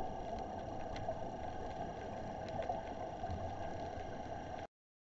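Steady, muffled rushing noise of an underwater camera's own audio, with a few faint clicks; it cuts off abruptly near the end.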